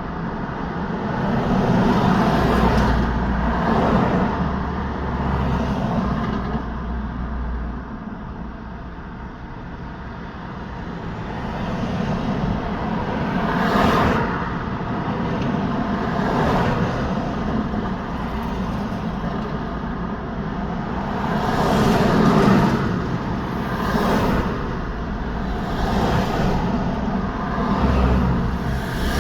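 Road traffic: cars and trucks passing one after another, their tyre and engine noise swelling and fading with each pass. The noise drops to a lull about a third of the way in, and a deep rumble sits under the passes near the start and the end.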